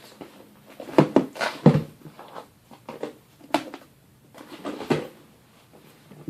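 Knocks and clatters of slime containers and packaging being handled, a quick cluster of knocks about a second in, then single knocks a couple of seconds apart.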